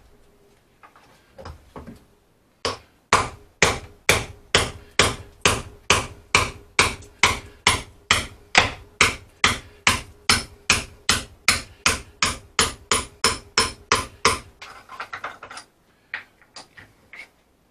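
Hammer striking repeatedly, about three blows a second for roughly twelve seconds, then a run of lighter, quicker knocks near the end: the work of knocking out a rotten wooden floor timber from a boat's hull.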